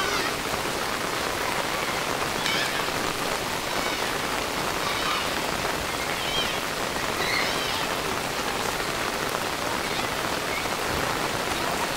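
Heavy rain falling steadily on a waterlogged dirt yard, an even hiss of drops splashing into standing water.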